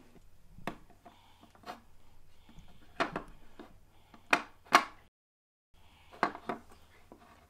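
Small plastic dolls and toy furniture clicking and knocking on a tabletop as they are handled, about eight separate taps with the loudest about three and a bit under five seconds in. The sound drops out completely for about half a second a little after five seconds in.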